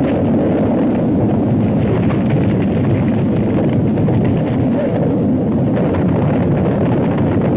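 A loud, steady rushing noise on an old 1930s film soundtrack, with no rise or break.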